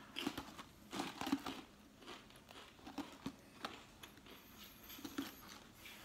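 Faint dry crunches of a Lay's Stax potato crisp being bitten and chewed, in short irregular clusters.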